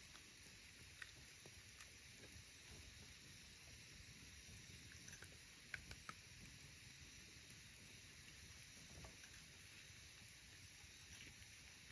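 Near silence: a faint steady hiss with a few small, sharp clicks scattered through it, two close together about halfway through.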